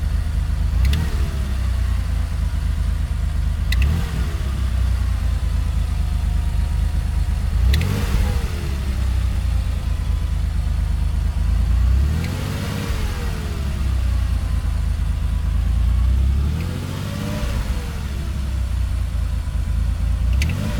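Porsche 930's 3.3-litre air-cooled turbocharged flat-six idling, blipped about five times so the pitch rises and falls each time, with a sharp click at the start of several blips. It is the engine sound that the owner calls weird.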